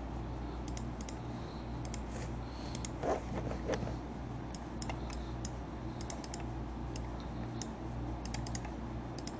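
Computer keyboard being typed on: faint, irregular key clicks in small clusters, over a low hum.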